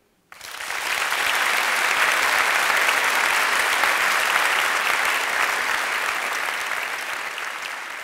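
Large audience applauding. The applause breaks out suddenly just after the start, holds steady, then slowly dies away toward the end.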